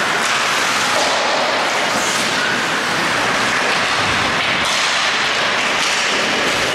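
Ice hockey play on the rink: skates scraping the ice and sticks clacking over a steady rushing noise.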